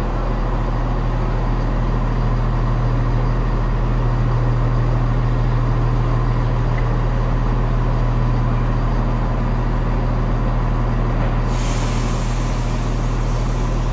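Class 170 Turbostar diesel multiple unit idling at a platform, its underfloor diesel engines giving a steady low hum. About eleven and a half seconds in, a loud hiss of compressed air being released starts.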